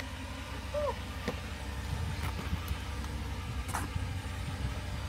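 Off-road vehicle's engine running low and steady as it creeps down a rock drop, with a few faint knocks.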